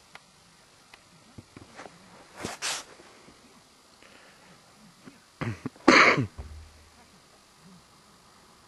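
A person coughing several times close to the microphone: two short coughs about two and a half seconds in, then a harder, louder one about six seconds in.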